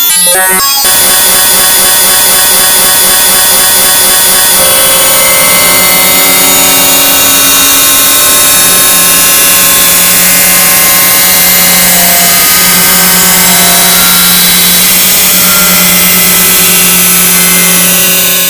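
Loud, harsh electronic drone from an image sonification: many steady tones stacked from low to very high, grinding like machinery. A low hum comes in about four and a half seconds in, and the sound starts to fall away at the very end.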